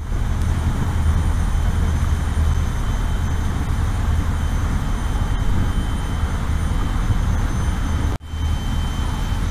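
Motor boat underway at speed: a steady low engine rumble mixed with the rush of churning wake water and wind on the microphone, with a faint high whine on top. Drops out for an instant about eight seconds in.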